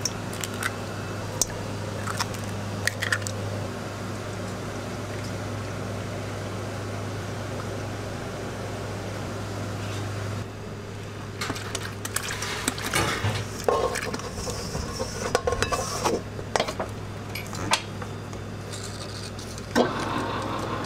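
Eggs cracked and utensils clinking and knocking against a stainless steel mixing bowl, over a steady low hum. Near the end an electric stand mixer starts running.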